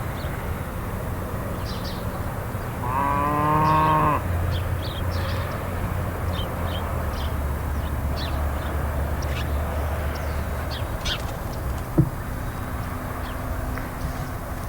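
Farm ambience: a cow moos once, loudly, about three seconds in, over a steady low engine rumble and scattered short bird chirps. A single sharp knock sounds near the end.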